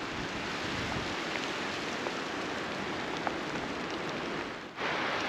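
Steady rain falling, an even hiss with an occasional faint drop tick; the sound dips briefly near the end and comes back.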